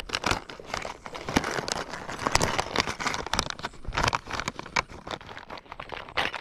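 Plastic soft-bait lure packet crinkling in the hands as it is handled and opened, a dense run of irregular crackles.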